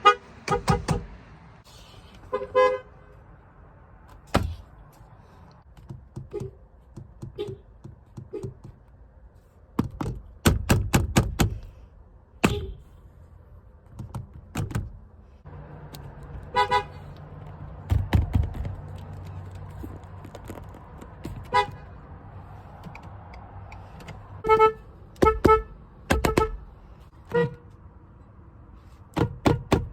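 Car horn sounded in a series of short toots, several in quick succession near the end, between sharp clicks and thunks. A steady low hum sits under it from about halfway through.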